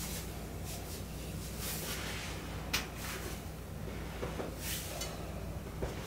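Hands pressing and rubbing over the fabric of shorts during a hip massage: soft repeated swishes of cloth, with one sharp click about three seconds in and a steady low hum underneath.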